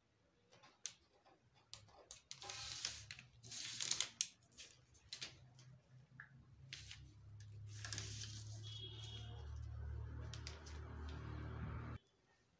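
Faint pattern-drafting sounds: a pencil scratching lines along a plastic ruler on pattern paper, with the paper rustling and the ruler and tape measure clicking as they are handled. A low steady hum comes in about seven seconds in and cuts off abruptly near the end.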